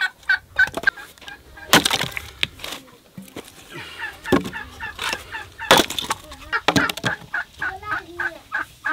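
An axe chopping and splitting firewood logs: several sharp blows with the wood cracking apart. Chickens cluck repeatedly between the blows.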